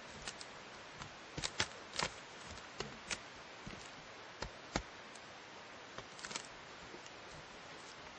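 Dry fir bark slab and forest debris crackling and snapping under a person's weight as they crawl in and shift onto a bark sleeping mat: a dozen or so irregular sharp clicks, the loudest in the first half, over a faint steady hiss.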